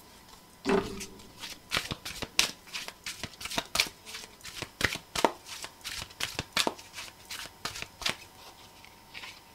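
Deck of oracle cards being shuffled by hand: a run of quick, uneven card snaps and slaps, a few a second, starting about a second in.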